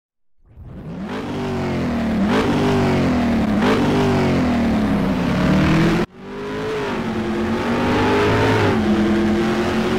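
Car engine revving hard through the gears, fading in, its pitch climbing and dropping back at each shift. It cuts off abruptly about six seconds in, and a second run of engine sound follows at a steadier pitch.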